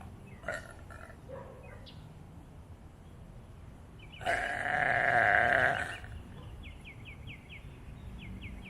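A person burping: one long, loud burp lasting nearly two seconds, about halfway through.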